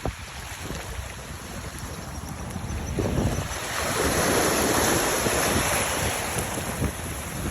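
Wind buffeting the microphone over the wash of waves, growing louder about three seconds in.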